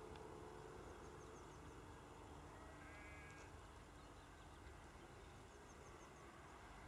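Near silence: faint rural outdoor ambience with a low, even rumble, and one short distant animal call about three seconds in, with a few faint high bird chirps.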